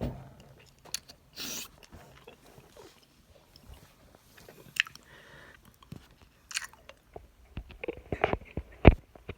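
Mouth noises of someone eating a mouthful of four Warheads sour hard candies: scattered wet clicks and crunches, growing denser and louder near the end.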